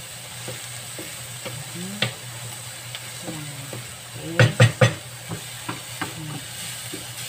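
Chopped onion and garlic sizzling in a little olive oil in a frying pan while being stirred, with scraping and light clicks. A quick run of three or four sharp knocks about four and a half seconds in is the loudest sound.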